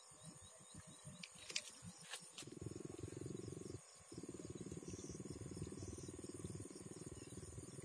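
A low, uneven rumble on the microphone, louder from about two and a half seconds in and dropping out briefly near four seconds, with two sharp clicks before that.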